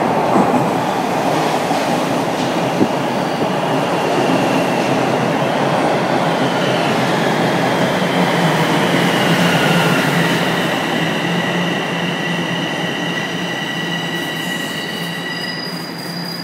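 Toronto Rocket steel-wheeled subway train pulling into a station and slowing to a stop: a loud, steady rumble of wheels on rail with squealing tones that slide slowly down in pitch, and higher-pitched whines joining near the end as it comes to rest.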